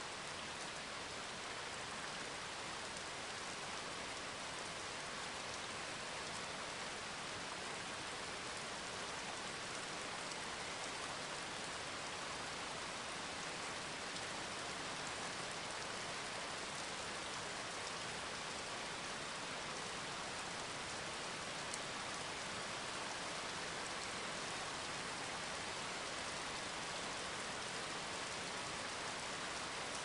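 Steady, even hiss that sounds like rainfall, with a few faint ticks.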